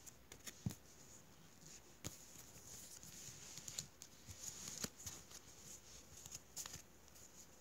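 Faint rustling and scattered light clicks of a small stack of Pokémon trading cards being handled by hand, the cards sliding and tapping against each other.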